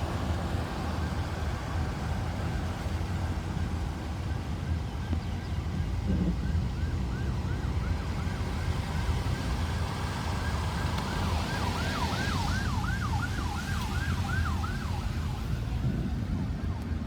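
Ambulance siren on a fast yelp, sweeping up and down a couple of times a second over a steady low rumble. It grows louder, is loudest about two-thirds of the way through, then fades out.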